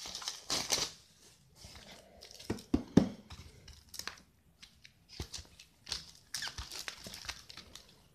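Packaging rustling and crinkling as a stack of screen-protector packs is pulled out of a mailing envelope and shuffled in the hands, with a couple of sharp knocks about three seconds in.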